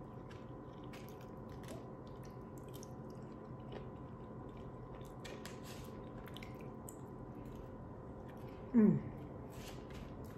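Quiet chewing and mouth sounds of someone eating takeout food, with scattered soft clicks of a plastic fork picking at food in a foam takeout container. Near the end comes one brief, louder voice-like sound falling in pitch.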